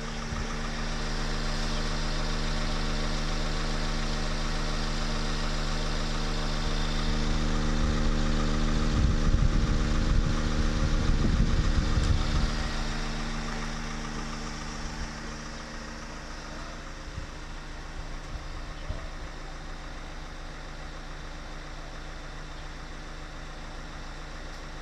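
A vehicle engine idling steadily. A louder low rumble swells about eight seconds in, then fades away a few seconds later.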